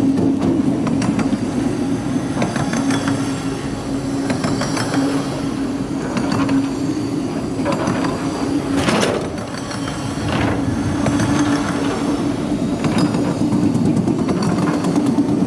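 BNSF double-stack intermodal freight train rolling past, a steady rumble and hum with the wheels clicking over the rails and a brief squeal about nine seconds in.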